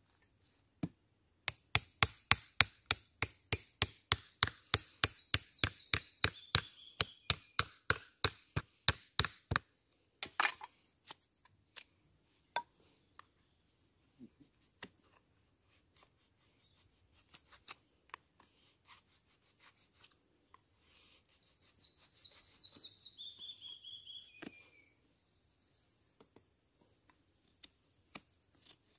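Wood being chopped with a blade while shaping a spoon blank: a run of sharp, evenly spaced strikes, about three or four a second, lasting about nine seconds. Then scattered light knocks and, later, a few seconds of quicker, lighter cutting strokes.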